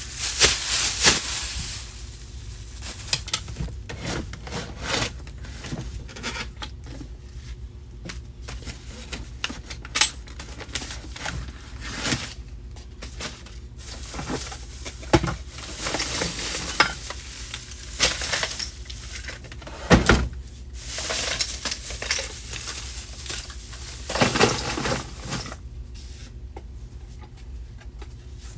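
Rustling and light clattering of objects being handled and moved about, with irregular knocks and short bursts of rustle.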